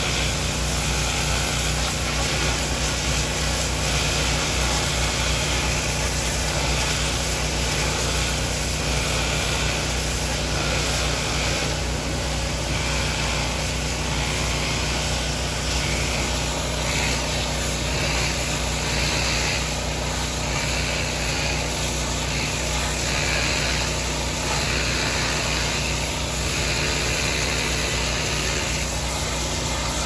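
Pressure washer running steadily, its water jet hissing against the stonework, the spray noise swelling and fading in patches as the wand moves over the surface.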